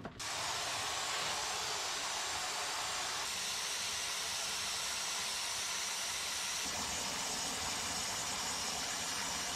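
Garden hose spraying a steady, hissing jet of water into a plastic tub, onto wood chips and manure in the bottom as the tub begins to fill.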